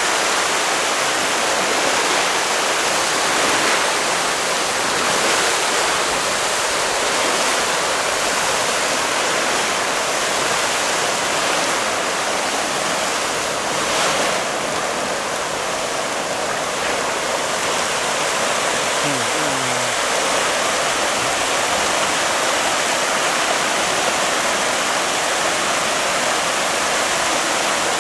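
A huge shoal of striped catfish splashing and thrashing at the water's surface in a feeding frenzy as feed pellets are poured in: a steady, dense rushing of churned water.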